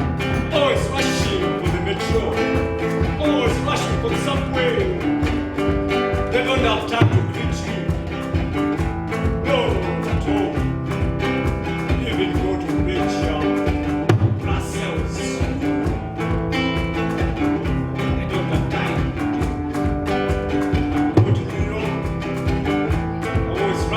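Acoustic guitar playing an instrumental passage, plucked notes over a steady rhythm.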